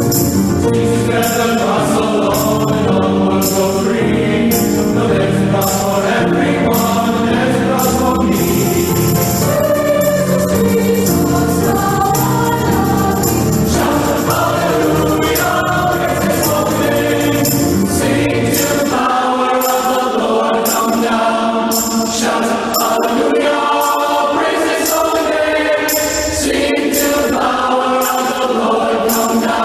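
Christian choral music: voices singing over instruments, with a steady beat of high percussion. The low bass drops out about two-thirds of the way through.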